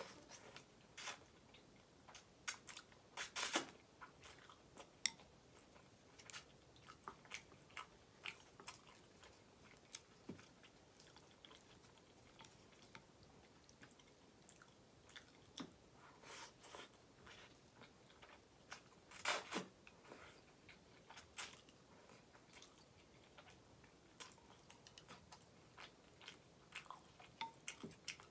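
Close-miked chewing and biting of ramen noodles and vegetables: soft wet mouth clicks with crisp crunches here and there, the loudest bites about three seconds in and again about nineteen seconds in.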